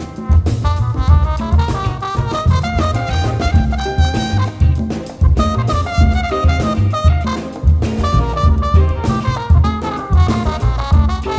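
Instrumental background music with drums and brass: an upbeat swing-style passage with horns over a steady beat.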